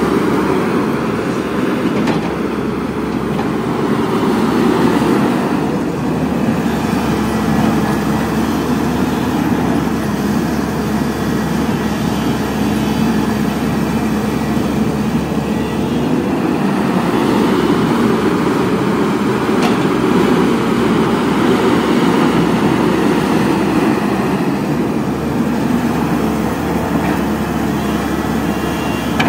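Caterpillar 320D hydraulic excavator's diesel engine running under load as the machine digs and shifts soil: a steady, loud mechanical drone that rises and eases in loudness a few times.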